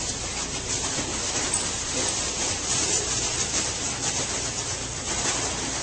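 Plastic wrap being pulled off the roll and stretched across a doorway: a steady hiss with faint crackles.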